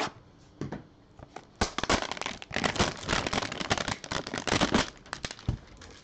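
Crinkling and rustling of packaging as gloved hands handle a cardboard trading-card hanger box: a few light clicks at first, then a dense stretch of crackly crinkling for a few seconds.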